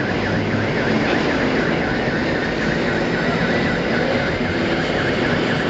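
Container quay crane at work: a steady machinery drone with an electronic warning alarm warbling about five times a second over it.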